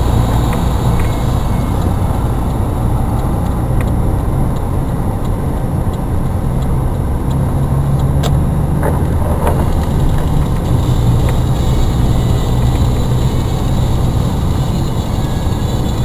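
Steady low rumble of a car driving on a snow-covered road, heard from inside the cabin, with a couple of faint clicks.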